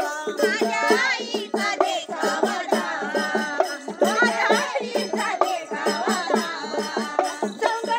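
Women singing a Yellamma devotional folk song, a lead voice with others joining, over a steady rhythmic beat from small hand-played percussion.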